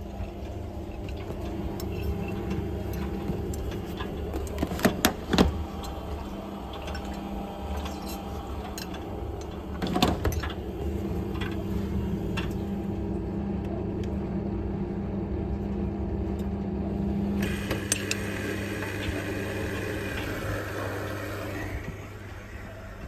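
Front-loading washing machines running a 60 °C wash: a steady motor hum with the drum turning, a few sharp knocks about five seconds in and again about ten seconds in, and a hissing rush of water that starts past the middle and fades near the end.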